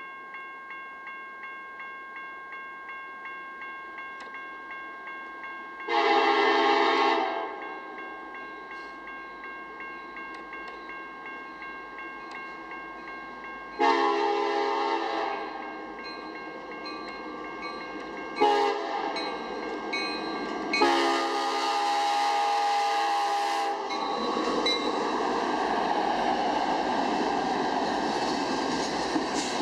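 Grade-crossing bell ringing about twice a second while an approaching Union Pacific diesel freight locomotive sounds its air horn for the crossing in the standard long, long, short, long pattern. Over the last few seconds the locomotives and train pass close by, running loud.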